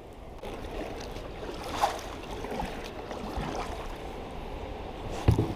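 Creek water rushing over a low waterfall, a steady wash, with a couple of low knocks near the end.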